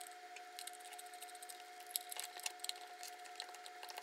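Faint scattered clicks and taps of a plastic auxiliary lamp housing and its glass lens being handled and fitted together, over a faint steady tone.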